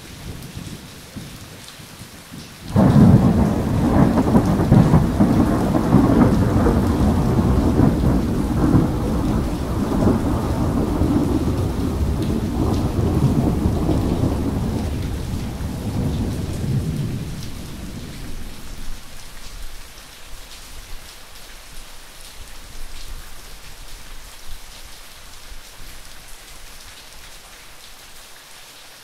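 Thunderstorm: steady rain with a thunderclap that breaks in suddenly about three seconds in, then rolls on as a long low rumble that fades over some fifteen seconds, leaving only the rain.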